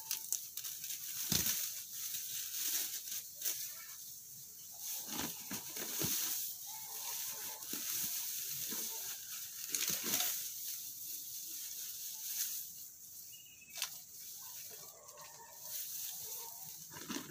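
Irregular rustling, scraping and knocking from someone handling things, with faint voices now and then.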